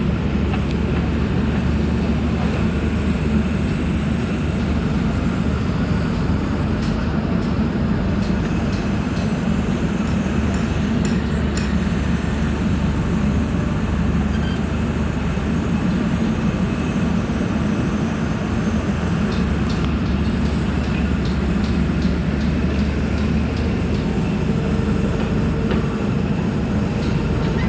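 JCB 3CX backhoe loader's diesel engine running steadily under work, a constant low hum, with a few light clinks here and there.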